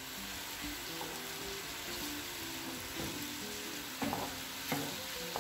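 Diced chicken breast sizzling steadily as it fries in vegetable oil in a pan, stirred with a wooden spoon, with a few light knocks of the spoon near the end.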